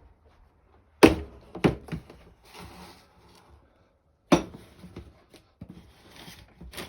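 A chipmunk rummaging in a potato chip bag: sharp crackles of the bag about a second in, again just after, and once more about four seconds in, with softer rustling between.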